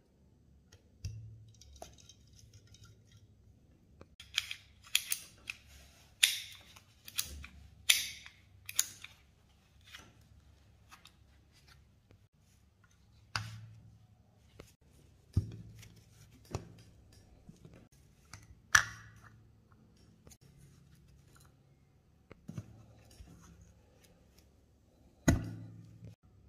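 Steel parts of an Astra 4000 Falcon pistol clicking and knocking as it is reassembled and handled. A quick run of sharp metallic clicks comes a few seconds in, followed by single knocks every second or two.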